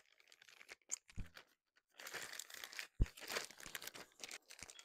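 Plastic packaging crinkling and tearing as a shipping bag is opened by hand, dense crackling from about two seconds in, with a sharp thump about three seconds in.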